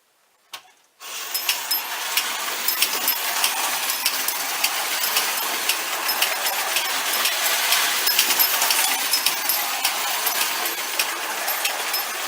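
Clockwork motor of a Marx No. 400 wind-up toy locomotive set going after a click about half a second in, then whirring steadily as the engine runs on three-rail O-gauge track, with frequent metallic clinks from its ringing bell.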